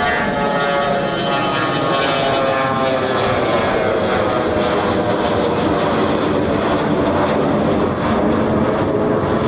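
Fokker 100 jet's two rear-mounted Rolls-Royce Tay turbofans climbing out overhead after takeoff: a loud, steady jet noise with whining engine tones that slide slowly lower in pitch as the aircraft moves away.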